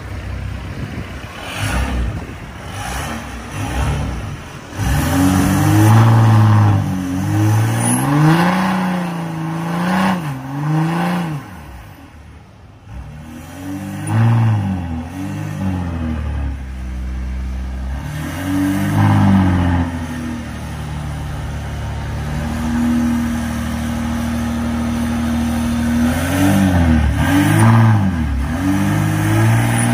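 VW Amarok's 3.0 V6 turbodiesel, stage 2 remapped and fitted with a 3-inch straight-through stainless exhaust, free-revved in repeated blips while standing. The pitch rises and falls with each blip, and there are steadier held stretches between them, the longest in the latter part.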